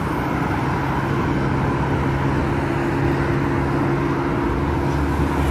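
Motor vehicle engine running steadily amid road traffic noise. A deeper hum joins about four and a half seconds in.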